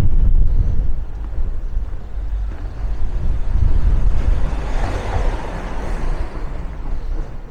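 Street traffic: a motor vehicle passing close by, its engine and tyre noise swelling to a peak about five seconds in and then fading, over a steady low rumble.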